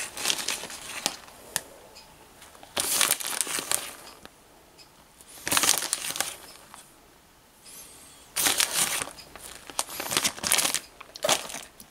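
Plastic bag of grated cheese crinkling in several separate bursts as it is shaken and squeezed to sprinkle the cheese out.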